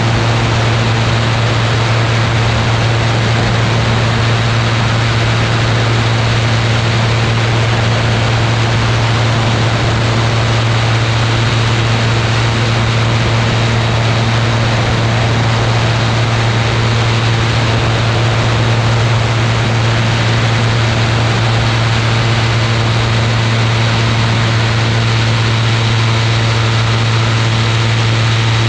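Ultralight aircraft's engine and propeller running at a steady pitch, with a constant rush of wind over it.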